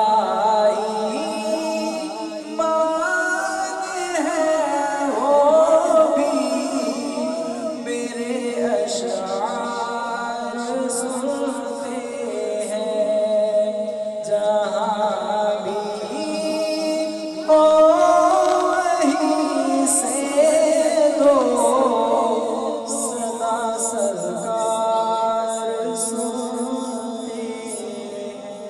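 A man's voice singing a naat (Urdu devotional poem) without instruments into a microphone, in long, slowly gliding held phrases. A steady drone sounds underneath throughout.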